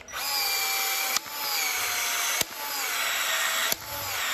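Uponor M12 cordless PEX expansion tool expanding the end of a 1-inch PEX-A pipe and its ring. The motor whines in repeated strokes about every 1.3 seconds, its pitch sagging under load through each stroke. Each stroke ends in a sharp click as the head resets and turns automatically for the next expansion.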